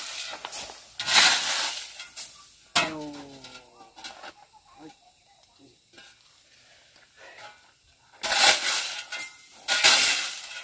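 Steel shovel blade scraping into and scooping crushed gravel, four gritty scrapes: two in the first two seconds, a quiet pause, then two more near the end.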